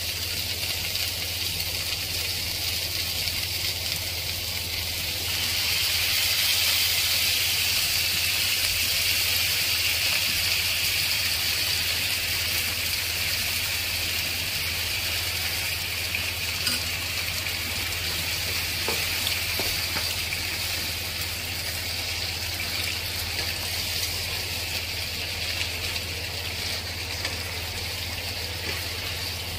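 Beef, potato and tomato pieces sizzling in a nonstick frying pan on a gas stove. The sizzle grows louder about five seconds in as the pan fills with sauce, and carries on steadily with a few light spatula ticks.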